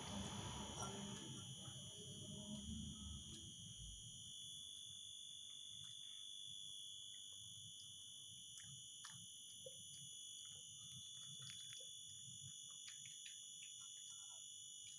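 A Shih Tzu eating a soft rice meal from a ceramic bowl: faint, scattered chewing and small clicks, a little louder in the first few seconds, under a steady high-pitched whine.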